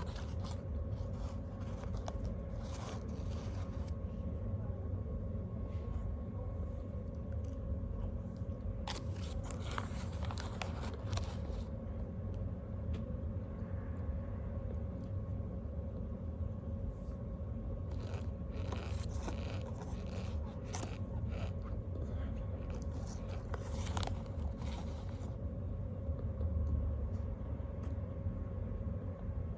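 A person crunching and chewing a crunchy snack in several separate bouts, over a steady background hum.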